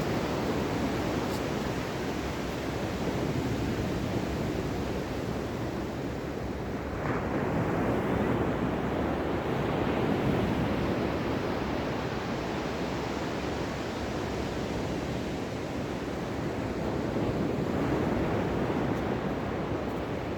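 Ocean surf: waves breaking and washing in a steady rush that swells and ebbs slowly, with louder surges about a third of the way in and again near the end.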